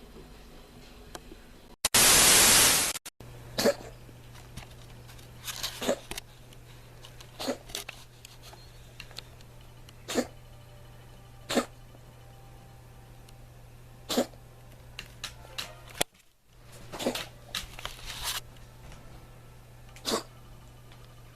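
Domestic cat coughing: short hacking coughs, one every second or two, some coming in quick clusters, over a steady low hum. A loud burst of hiss lasts about a second, about two seconds in.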